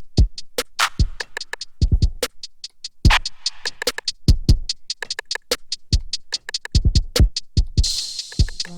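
Programmed drum-machine beat playing back from Native Instruments Maschine: deep kick drums, snare hits and quick, tightly spaced hi-hats in an even rhythm. A brighter cymbal-like wash comes in near the end.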